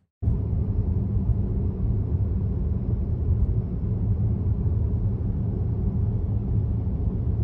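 Steady low rumble of a car's engine and tyres on the road, heard from inside the moving car's cabin; it starts and stops abruptly.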